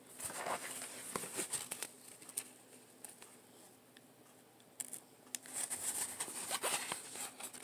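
Soft rustling and crinkling of a rolled diamond painting canvas and its paper release sheet being handled and unrolled by hand, with scattered light clicks; it goes quiet for a couple of seconds in the middle and picks up again about five seconds in.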